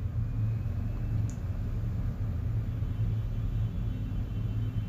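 Steady low background rumble, with a faint tick about a second in.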